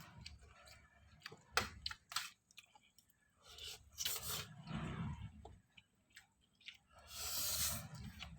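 A person eating instant noodles and chicken: chewing and biting with wet smacks and a few sharp clicks, and a louder breathy rush about seven seconds in.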